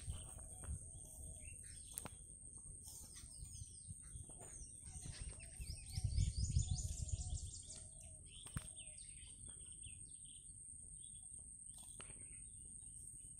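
Small birds chirping in quick runs of short, high calls, busiest through the middle, with a low rumble swelling about six seconds in that is the loudest part.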